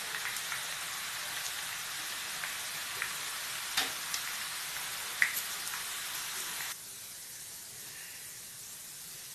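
Gram-flour sev deep-frying in hot oil, a steady sizzle with a few sharp pops. About two-thirds of the way through it drops suddenly to a quieter sizzle as the frothing dies down.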